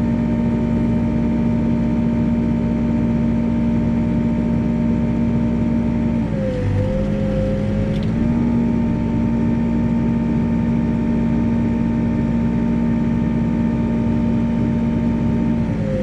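Backhoe engine running at a steady speed. Its pitch drops about six seconds in, comes back up about two seconds later, and drops again near the end.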